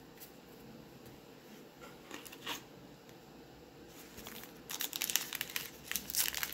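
Wrapper of a baseball card pack crinkling and tearing as it is pulled open. It starts about two-thirds of the way in, after a few faint handling clicks, and gets denser toward the end.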